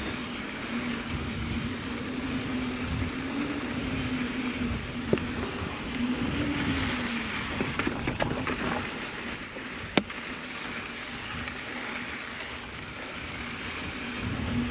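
Mountain bike rolling fast over a sandy dirt trail: steady tyre and wind noise with a whirring hum that rises and falls in pitch with speed. Sharp rattling clicks from the bike hitting bumps, the loudest about five and ten seconds in.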